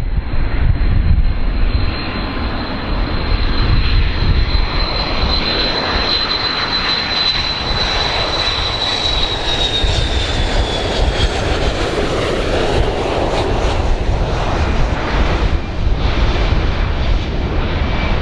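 Boeing 727 tri-jet on landing approach, passing low: steady jet-engine rumble with a high engine whine that drops in pitch and fades about halfway through as it goes by.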